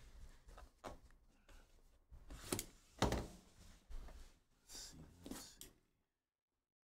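Clicks and knocks from an aluminium Panini Flawless briefcase being handled: hands shifting it on the mat and working its metal latches and lock with a small key, the loudest knock about three seconds in. The sound then cuts off to dead silence about a second before the end.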